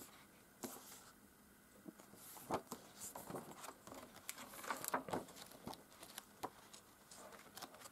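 Pages of an oversized hardcover comic book being turned and handled: faint, irregular paper rustles and swishes.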